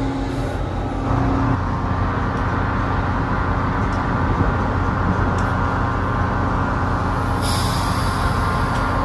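Passenger trains standing at a station platform: a steady mechanical hum with a faint whine. About seven and a half seconds in comes a hiss of air being released that lasts about a second and a half.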